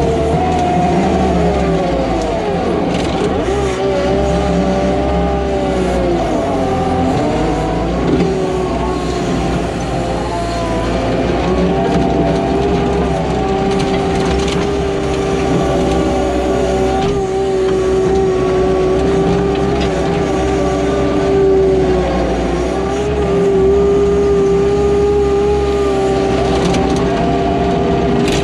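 Hyundai HX210AL excavator's diesel engine running steadily at working speed. Its note dips and recovers a few times, about two to seven seconds in and again briefly near the end, as the hydraulics take load.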